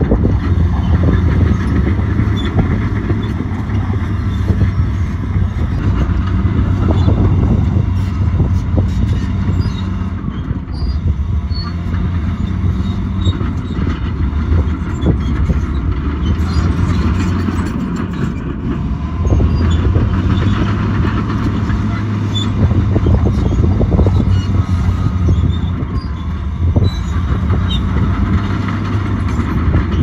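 Bulldozer's heavy diesel engine running steadily under load, with its pitch and level dipping and rising again a couple of times.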